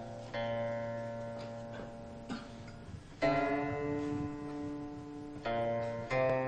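Background music of slow plucked-string notes. A new note or chord is struck every second or few, each left to ring out and fade.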